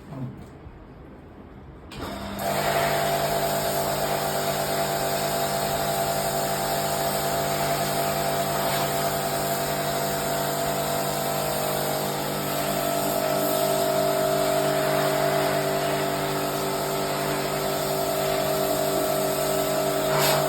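A motor-driven machine starts about two seconds in and runs at a steady speed, a constant hum of several tones over a hiss.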